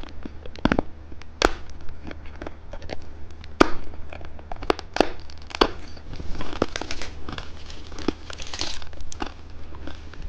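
Plastic candy wrapper crinkling and crackling as it is handled and opened, with many sharp clicks and a denser stretch of crinkling about six to nine seconds in.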